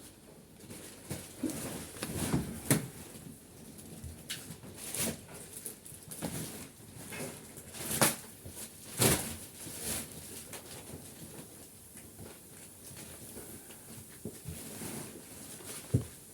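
Irregular crackling and rustling of plastic wrapping being handled as a vacuum-pressed roll mattress is unpacked, with several sharper crackles.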